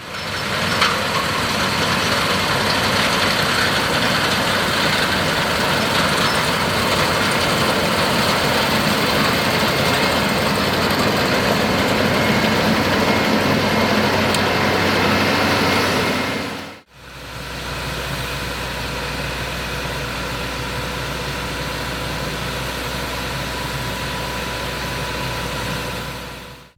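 Case IH Axial Flow AF10 combine harvester running steadily while harvesting wheat. About seventeen seconds in, the sound breaks off briefly and resumes a little quieter, with a deeper steady engine hum.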